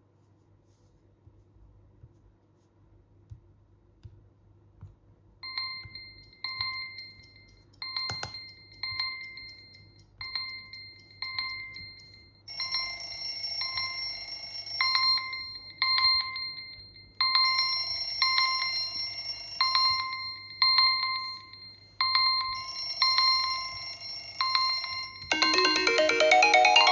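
Smartphone alarm and timer tones. About five seconds in, a short electronic beep starts repeating roughly once a second. From about halfway a second alarm joins it, sounding in bursts of about two and a half seconds with short gaps. Near the end a melodic ringtone begins.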